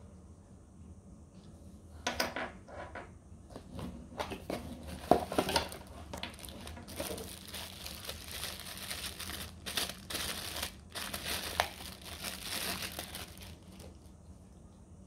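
Thin plastic packaging bags being handled and crinkled, in irregular fits from about two seconds in until near the end, with some sharp clicks mixed in.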